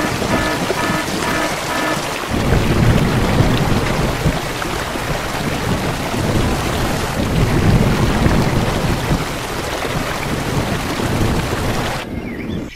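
Steady heavy rain with rolling thunder: the thunder comes in about two seconds in and swells twice, and it all cuts off suddenly near the end. A light tune of short repeated notes plays under the rain at first and stops when the thunder starts.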